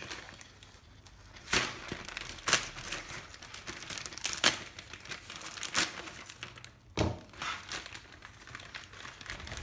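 Plastic mailing bag crinkling and tearing as it is cut open with a Victorinox Huntsman pocket knife, with several sharp rustles and snips. A knock about seven seconds in.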